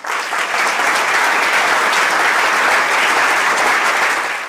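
Audience applauding loudly and steadily, cut off abruptly near the end.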